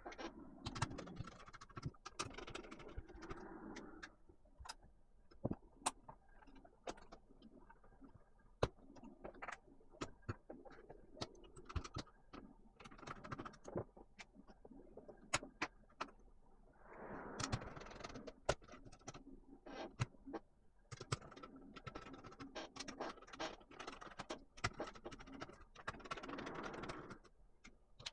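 Laptop being taken apart by hand, its mainboard being lifted out. There is a run of irregular small clicks and taps from plastic and metal parts, with stretches of rustling and scraping.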